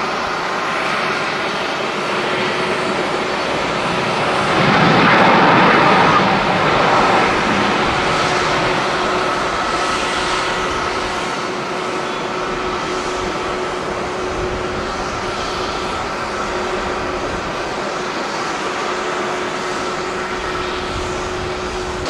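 Jet airliner engines at high power as a Boeing 777 lifts off: continuous engine noise with a faint steady whine. It swells loudest about five seconds in, then settles to a steady, slightly lower level.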